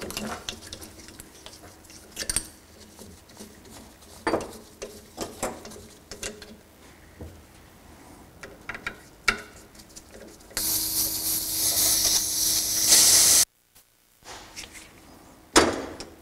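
Nitrogen charge let out through the valve of a Fox EVOL shock's reservoir: a loud hiss lasting about three seconds that stops abruptly. Before it come scattered light clicks and taps of metal parts and tools being handled, and there is a single knock near the end.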